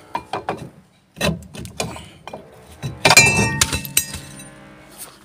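Metal clinks from the removed rear brake drum being handled. About three seconds in comes a hard knock that leaves the drum ringing, fading over about two seconds.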